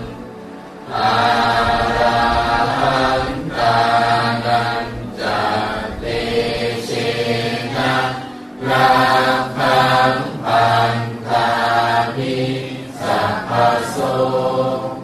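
Chanting by several voices over a steady low drone, in sustained phrases with short pauses between them.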